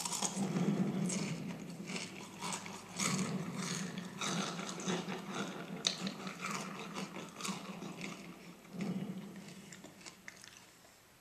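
Frosted Flakes cereal being chewed close to the microphone: rapid, irregular crunching that tails off near the end.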